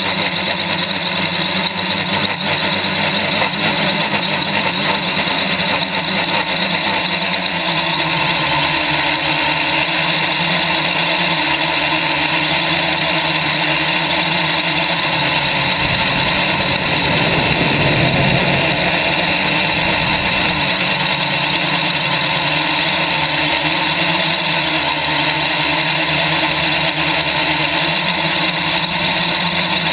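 Quadcopter's four electric motors and propellers whining steadily in flight, heard from a camera on the frame, over a constant rush of wind noise that the owner takes to be mostly prop wash. The rush swells about halfway through, and the motor tones shift in pitch near the end.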